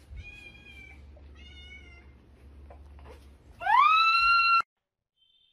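A cat meows twice, short calls, then gives a much louder, longer call that rises in pitch and then holds, cut off abruptly.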